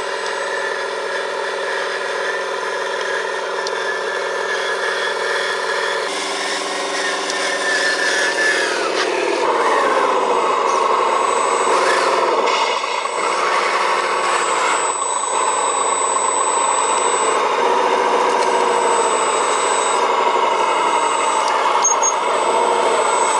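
A 1/14-scale hydraulic RC construction machine running, its motor and hydraulic pump giving a steady whine of several tones. About nine seconds in, the pitch drops and begins to waver up and down as the machine works.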